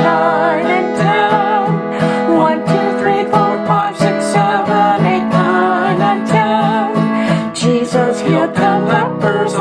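Music: an acoustic guitar strumming a steady rhythm under a wavering melody line, the accompaniment of a children's song.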